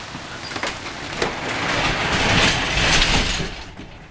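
Hail pelting down: a dense hiss with sharp clicks of single stones striking, swelling louder about halfway through and then fading near the end.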